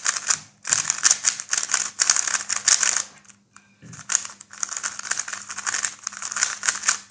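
Brand-new DaYan GuHong V4 M magnetic 3x3 speedcube being turned fast: a dense run of plastic clicking and clacking as the layers snap round, in two long stretches with a short pause a little past the middle.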